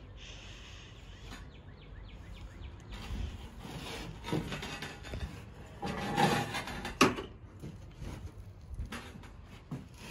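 Knocks, scrapes and rubbing from a heavy cruiser motorcycle, a Honda Shadow 750 with its engine off, being walked backwards by hand over a wooden shed floor. The sounds come irregularly and are busiest around the middle, with one sharp knock about seven seconds in.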